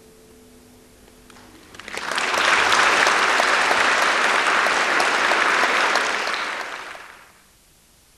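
Audience applauding, starting about two seconds in as the last note of the flute and harp fades, then dying away near the end.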